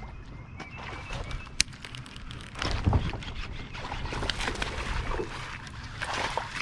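Water splashing and knocking around a fishing kayak, with a sharp click about a second and a half in and a louder splash near three seconds in, the kind a bass makes striking a topwater frog in lily pads.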